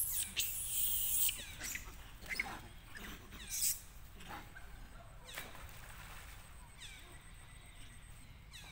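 A monkey splashing into pond water, a loud hissing splash in the first second and a half, followed by several short sharp sounds a second or two apart.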